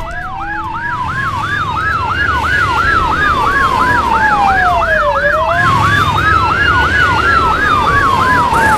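Two police sirens wailing together: one a fast yelp sweeping up and down about three to four times a second, the other a slow wail that rises and falls over about five seconds.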